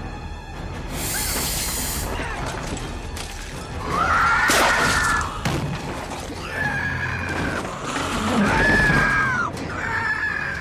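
Film soundtrack: window glass shattering and crashing as a giant snake breaks through, followed by a woman screaming several times, over tense orchestral horror music.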